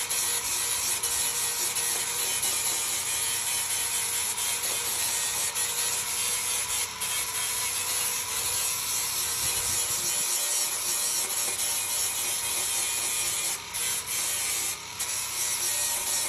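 A tool working steadily on a car body panel: a continuous mechanical rasping with a faint steady whine, briefly dropping out twice near the end.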